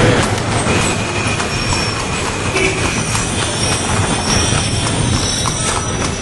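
Horse-drawn carriage rolling along a street: a steady rattle and clatter of the carriage and the horse's hooves, with thin high squeals now and then, over traffic noise.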